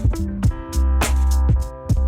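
Background music with a steady electronic beat: a deep sustained bass under plucked, guitar-like notes and regular drum hits.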